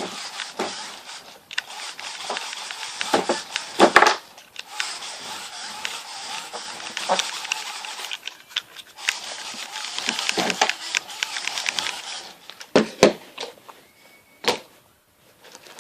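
Small homemade remote-control car driving, its geared-down electric motor and drivetrain running with a steady whir broken by clicks and knocks. The whir stops about twelve and a half seconds in, followed by a few single knocks.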